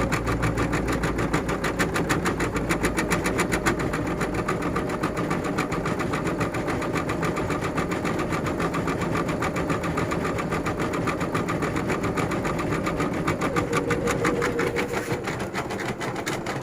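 EM200 computer embroidery machine stitching at speed: its needle strokes come in a fast, even rhythm.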